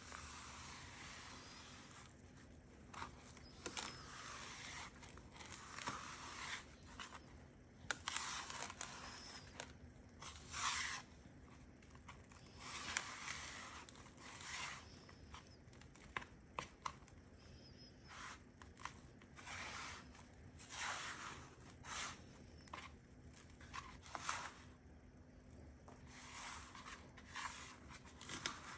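Hands pressing Shake 'n Bake crumb coating onto chicken drumsticks and scraping loose crumbs across a metal baking sheet: a run of short, gritty scrapes and rustles with the odd tap on the pan.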